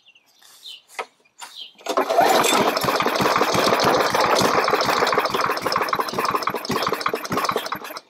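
A few clicks, then a push mower's small single-cylinder engine starts about two seconds in and runs with a rapid, even beat for about six seconds before cutting out abruptly near the end: the engine stalling.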